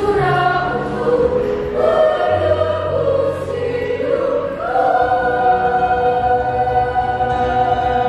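Children's choir singing, the voices moving through several notes and then holding one long chord from about five seconds in.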